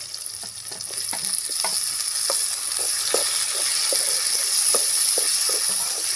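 Hot oil sizzling in an aluminium kadai as chopped tomatoes go in among frying shallots, the sizzle growing louder after about a second. A wooden spatula stirs the pan, with scattered scrapes and knocks against the metal.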